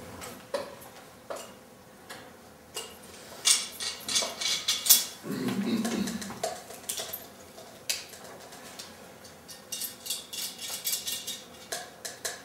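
Irregular light clinks and scrapes of a small metal utensil against a cup and other small objects, in quick scattered taps.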